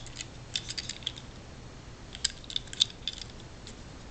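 Light, scattered clicks and ticks from a small die-cast toy truck being handled in the fingers. They come in little clusters of a few at a time.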